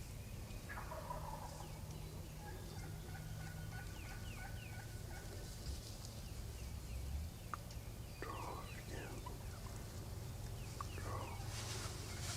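Wild turkey gobbling: three rattling gobbles, one about a second in and two more close together near the end.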